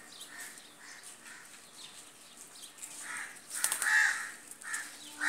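Harsh bird calls repeating about twice a second, crow-like caws, growing louder about three seconds in, with a brief sharp rustle or clatter among the loft birds partway through.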